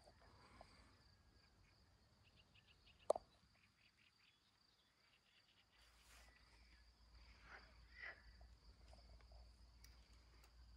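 Faint wetland ambience: a steady high-pitched insect trill, with a few short animal calls about two-thirds of the way through and one sharp click about three seconds in.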